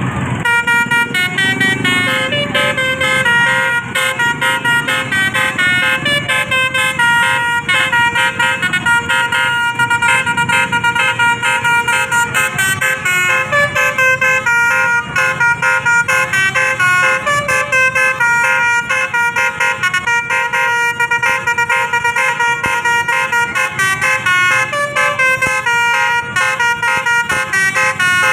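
Tour bus's multi-tone telolet horn playing a continuous fast melody of short, rapidly changing notes.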